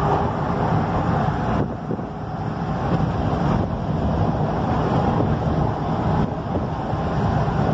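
Steady engine and road noise heard from inside the cab of a truck driving downhill.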